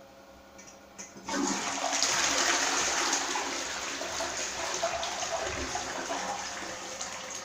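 Toilet flushing. After a brief click about a second in, water suddenly rushes into the bowl, loudest a second or so later, then slowly tapers off.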